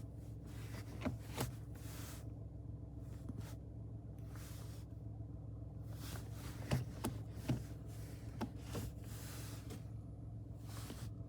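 Ford Focus 1.0 EcoBoost three-cylinder engine idling steadily, with a few sharp knocks scattered through. The rattle is one the owner suspects comes from the dual-mass flywheel.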